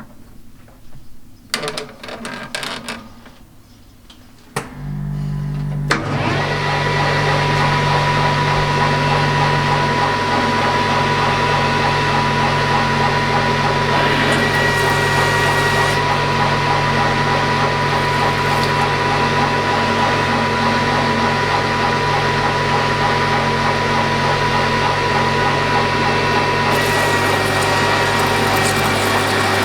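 A few light clicks, then about five seconds in an electric motor hums on. About a second later a lathe grinding setup comes up to a steady run with a high whine.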